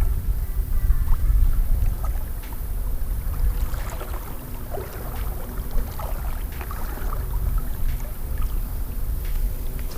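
River water sloshing and splashing, with scattered small clicks, over a low rumble of wind buffeting the microphone that is loudest in the first two seconds.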